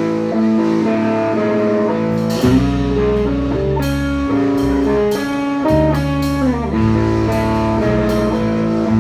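Live band playing an instrumental passage with no singing. A guitar figure plays alone at first, and bass and drums come in about two and a half seconds in.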